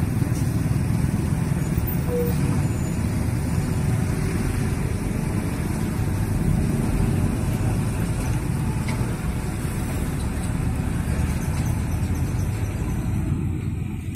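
Heavy diesel truck engine running steadily, with a low rumble, as a dump truck passes close by, mixed with the engines of passing cars and motorcycles.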